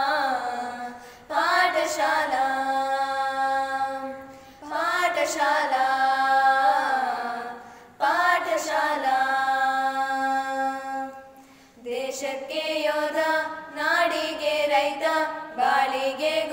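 A Kannada song sung slowly with long held notes, apparently without instruments, in drawn-out phrases of about three to four seconds. The word "paathashaala" (school) is sung about six seconds in, and the notes move faster near the end.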